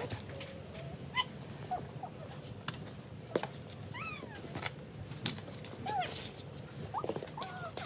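Small children making short high-pitched squeals and whines a few times, over scattered clicks and scrapes of a toy plastic shovel and snow clumps on the pavement.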